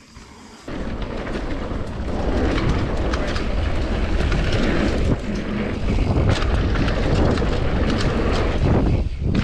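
Commencal Supreme DH downhill mountain bike ridden fast down a dirt trail. Wind rushes over the camera microphone, the tyres rumble on the ground, and the bike clatters and knocks over the rough terrain. The noise jumps up suddenly under a second in and then runs on loud and dense.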